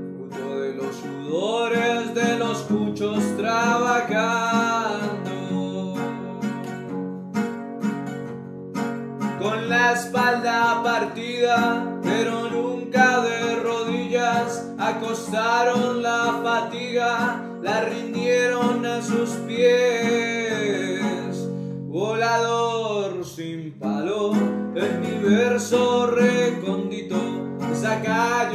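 A man singing a song in sung phrases with short breaks between them, accompanying himself on a bandola that he strums and picks.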